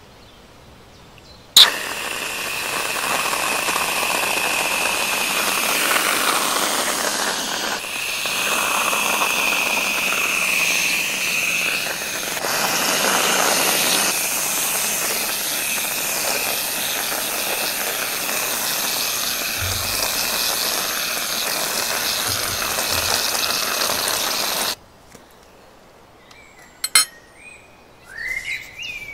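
Pressurised whipped cream dispenser spraying cream through its nozzle in one long hiss with a thin steady whistle. It starts with a sharp click about a second and a half in and cuts off suddenly a few seconds before the end.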